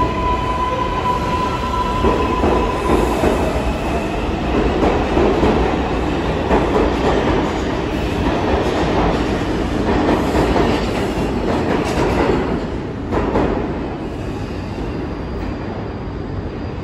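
R142 subway train pulling out of the station: a steady tone for the first couple of seconds, then a loud run of motor hum, wheel rumble and rail clatter as the cars pass, easing off about thirteen seconds in.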